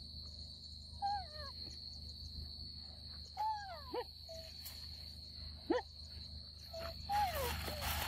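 Young macaques giving short coo calls that fall in pitch, about five of them, over a steady high insect drone. A brief rustling noise near the end.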